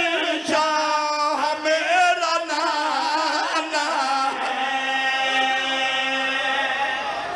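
Men's voices chanting a devotional qasida in Urdu-Punjabi, a wavering, ornamented sung line that settles into one long held note for the last few seconds.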